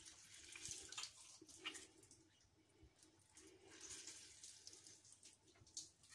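Faint wet squelching and rubbing of a hand working lemon juice over raw whole chickens in a stainless steel bowl, with small drips and ticks.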